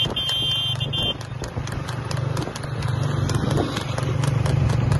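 A harness horse's hooves clattering on asphalt at a fast trot while pulling a tanga cart, over the steady running of a motor vehicle's engine alongside. A brief high, broken beeping tone sounds in the first second.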